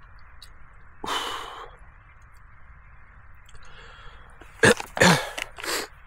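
A man's sharp breaths while eating very spicy food: one long exhale about a second in, then three short loud bursts of breath near the end.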